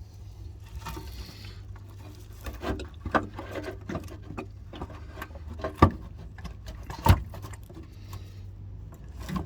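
Scattered clicks and knocks from the windscreen washer reservoir and its fittings being handled, with two sharper knocks about six and seven seconds in, over a steady low hum.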